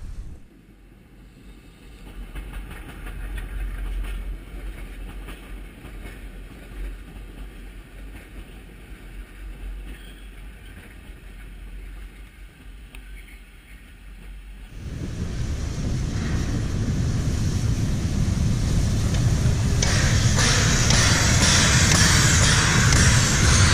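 Narrow-gauge passenger coaches rolling past with a low, fairly quiet rumble. About 15 seconds in it becomes much louder beside the Harz narrow-gauge steam locomotive 99 7232-4, a 2-10-2 tank engine, and loud hissing steam builds from about 20 seconds in.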